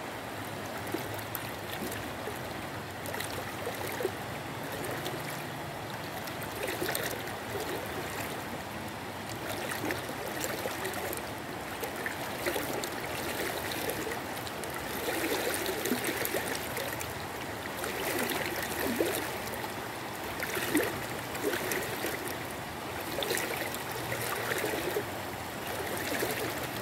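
Flowing river water rushing steadily, with small irregular splashes around a person wading waist-deep and hauling in a cast net, the splashing a little busier in the second half.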